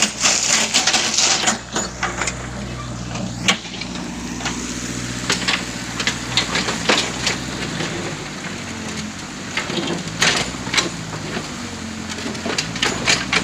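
Backhoe's diesel engine running steadily, with repeated sharp clanks and knocks from the bucket working in sand and stones.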